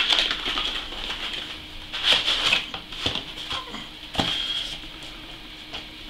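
Cardboard box being opened by hand: the end flap pulled open and a foam packing insert slid out, with rustling and a few sharp taps and knocks of the packaging against a wooden desk.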